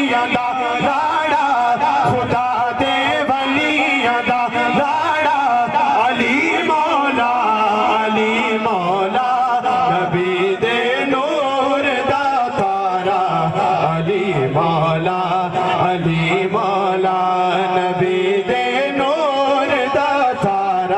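Man singing a devotional Punjabi kalam in praise of Ali into a microphone, in long drawn-out melodic lines.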